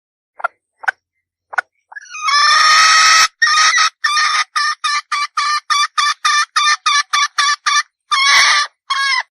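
Red junglefowl hen calling: three short clucks, then a long harsh squawk, then a quick run of short notes at about four a second, ending on two longer notes.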